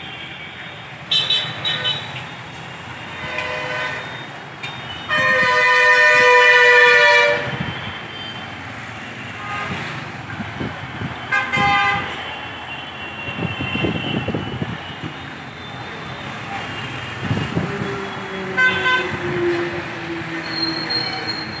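Road traffic with vehicle horns honking several times, mostly short toots. The loudest is a single long horn blast about two seconds long, some five seconds in.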